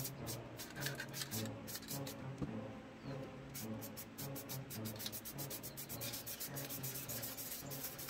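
Aerosol spray paint can hissing in short bursts, with a dense run of quick strokes from about three and a half seconds in, over background horror music with a low pulsing drone.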